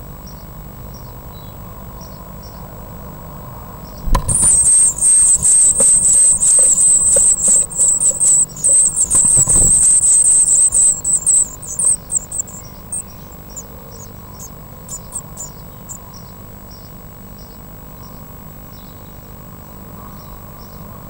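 Blue tit nestlings begging in a nest box. A thump about four seconds in sets off a chorus of rapid, very high-pitched begging calls that lasts about eight seconds, then thins out into scattered calls. Faint soft chirps repeat before and after the chorus.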